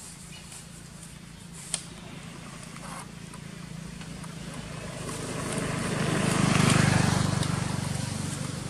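A motor vehicle passing: a low engine drone that swells to its loudest about two-thirds of the way through, then fades. A single sharp click comes a little under two seconds in.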